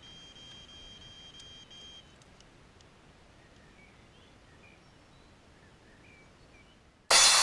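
Electronic carp bite alarm sounding one unbroken high tone for about two seconds, then cutting off: the continuous tone of a fish taking line on a run. Faint bird chirps follow, and loud music starts near the end.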